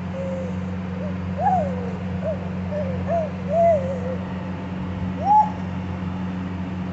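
A baby cooing: a string of short 'ooh' sounds, each rising and falling in pitch, with the loudest about a second and a half in and another longer one near the end, over a steady low hum.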